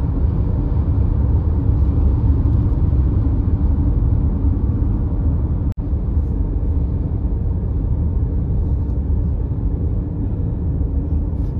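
Steady low rumble of a car travelling at highway speed, heard from inside the cabin: road and engine noise, with a momentary dropout about six seconds in.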